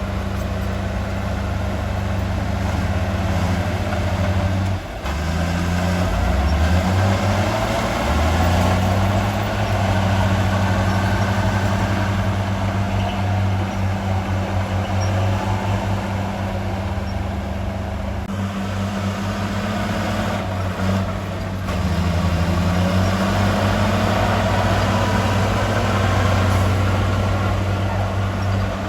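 Heavy diesel engine of earthmoving machinery running, its revs rising and falling a few times.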